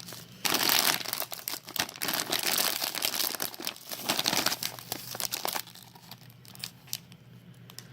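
Crinkly plastic snack bag of sour pickled plum flavoured corn puffs being handled, crackling densely for about five seconds, then only a few faint rustles and ticks.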